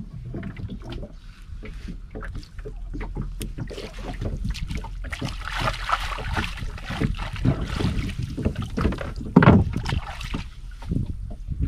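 Gill net being hauled over the side of a small boat: water splashing and dripping, with irregular knocks and clatter against the hull. A louder thump comes about nine and a half seconds in.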